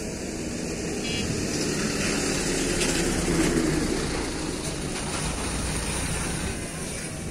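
A motor engine running nearby. It grows louder to a peak around the middle and then eases off, like something passing by.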